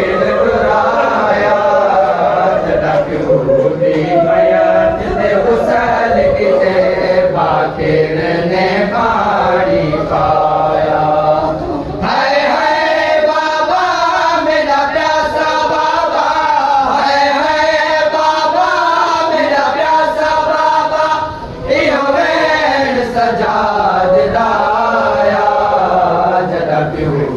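Male mourners chanting a Shia noha (Muharram mourning lament) together, many voices carrying a slow, wavering melody in chorus.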